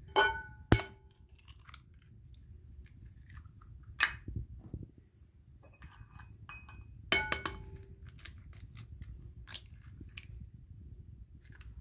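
Eggs cracked against the rim of a glass mixing bowl: several sharp taps, two of them leaving a brief ringing from the glass, with faint crunching of shell.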